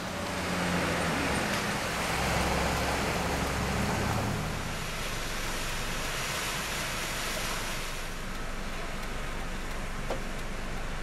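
Cars driving through a flooded street: engines running as the tyres plough through deep water and throw it splashing aside, in a steady rushing wash that is loudest in the first few seconds.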